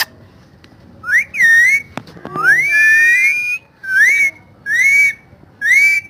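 Pet parrot whistling a string of about five rising-and-falling whistles, the second one long and held.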